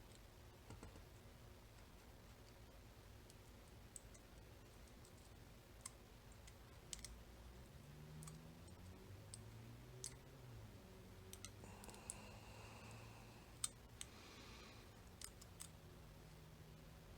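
Faint, scattered clicks of lock-picking tools working in a Mul-T-Lock Interactive cam lock, a dozen or so irregular ticks spread over the stretch.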